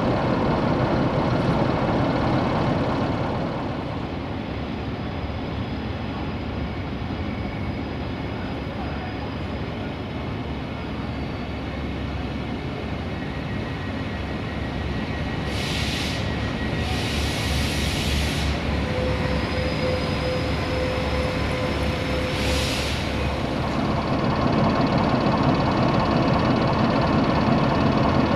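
LDE2100 (060-DA) diesel-electric locomotive idling, a steady rumble that is louder at the start and again near the end. In the middle come three short bursts of hiss.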